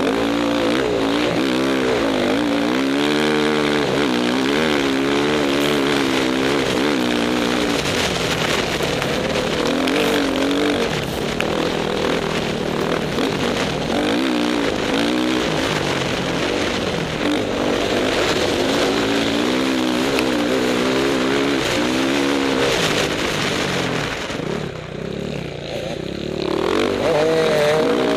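Off-road motorcycle engine heard from on board the bike, its revs rising and falling as the rider works the throttle and gears on a sandy track, with wind noise and other dirt bikes mixed in. The revs drop briefly a little before the end, then climb again.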